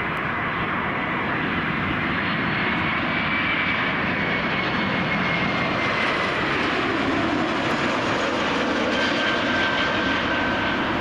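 Jet airliner engines running steadily as the aircraft passes, with a faint high whine that rises a little and then falls.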